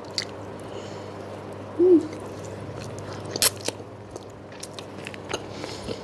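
A person biting into and chewing a soft roti john sandwich close to a clip-on microphone: small wet mouth clicks throughout, a brief hummed 'mm' about two seconds in, and a sharper smack about three and a half seconds in.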